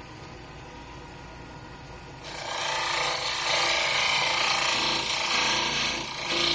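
Wood lathe running with a steady hum, then about two seconds in a tool is put to the spinning pine bowl and a loud, rough noise of wood being worked starts and carries on.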